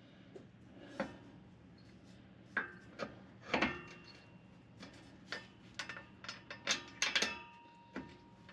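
Scattered metal clinks and scrapes as a driveshaft is turned by hand and its flange is worked into line with the bolt holes. A few of the knocks ring briefly, about a third of the way in and again near the end.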